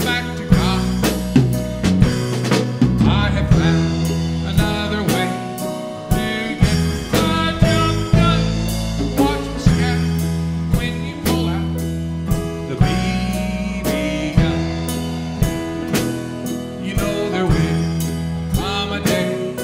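Acoustic guitar strummed in a steady country rhythm, about two strums a second, ringing chords between the strokes.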